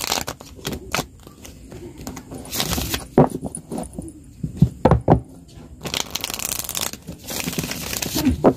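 Tarot cards being shuffled by hand: several bursts of card rustling, with sharp taps and thuds of the deck in between.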